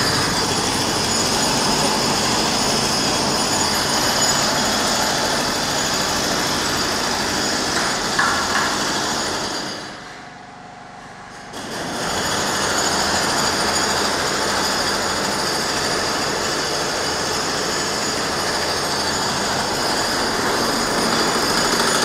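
Power tool running steadily and loudly, stopping for about a second and a half around ten seconds in, then starting again.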